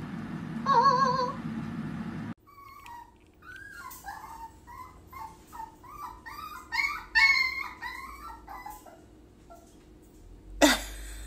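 A cockatiel gives a short warbling whistle, then a small dog whines and yips in a long run of short rising-and-falling cries, loudest about seven seconds in. A sudden loud noise comes near the end.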